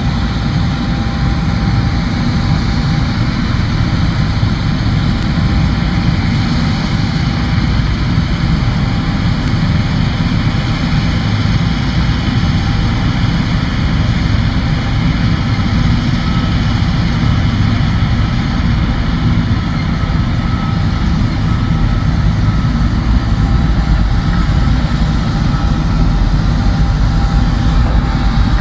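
John Deere combine harvester running steadily while harvesting soybeans: a loud, even drone of engine and threshing machinery with a faint steady whine.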